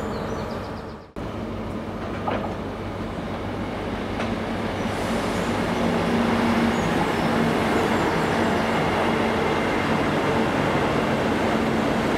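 Diesel passenger train approaching and running past on the line, an engine hum under the noise of wheels on rail, growing louder over the first few seconds and then holding steady. A brief break in the sound about a second in.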